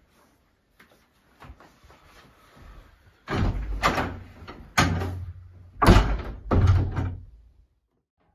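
A door being opened and banged shut: a few light clicks, then a run of heavy thuds and knocks in the second half, the loudest about six seconds in.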